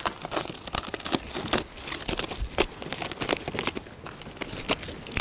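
Plastic wrapping crinkling and tearing as it is cut and pulled off the rower parts, in a dense run of irregular crackles.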